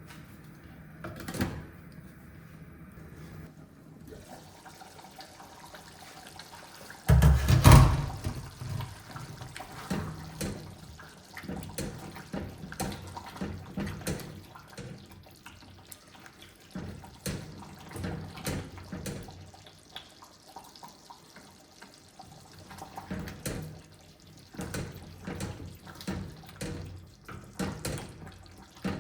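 Tap water running into a kitchen sink, with a loud gush about seven seconds in, followed by irregular knocks and clatter of things being handled and washed in the sink.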